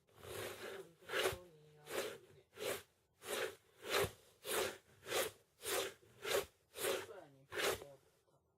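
A voice making a short, breathy sound over and over, about a dozen times at an even pace of a little under two a second, stopping shortly before the end.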